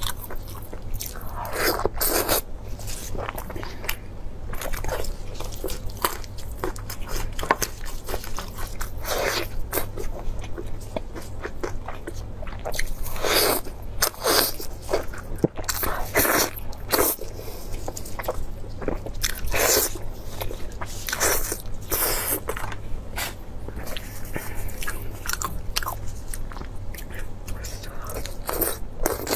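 A person chewing and biting braised mutton ribs: irregular wet mouth sounds and bites, some with a crunch, over a steady low hum.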